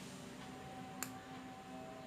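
Faint background music with a single sharp click about a second in.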